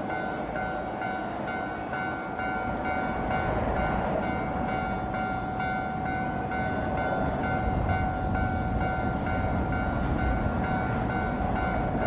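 Japanese level-crossing warning bell ringing steadily in its repeated electronic clang, about two strikes a second, while the crossing is closed for a train. A low rumble grows beneath it from about halfway through.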